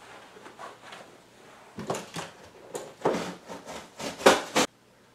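A large corrugated cardboard box being cut open, heard as several short scraping cuts in the cardboard that come closer together and grow louder toward the end, then stop suddenly.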